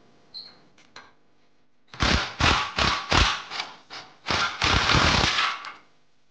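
Power tool spinning a bearing puller's forcing screw in short bursts, then one longer run, to draw the inner bearing race off a rear wheel hub. It starts about two seconds in after a few light clicks.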